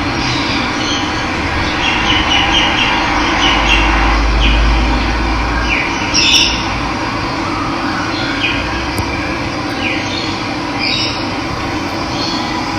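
Steady rush of running water, with birds calling over it in short, falling calls several times. A deep low rumble swells under it for a couple of seconds near the middle.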